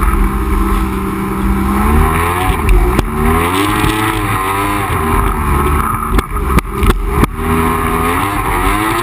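Yamaha GP1200R jet ski's two-stroke triple running under way, its pitch dropping and climbing again several times as the throttle is worked, over low wind rumble on the microphone. A few sharp knocks break in near the middle and toward the end.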